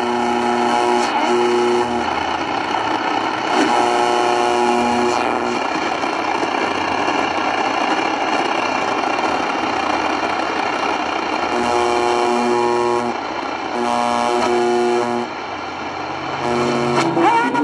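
Sony ICF-7600A portable radio tuned to a weak AM station: a steady hiss of static, with the station's music coming through as short held chords about four times.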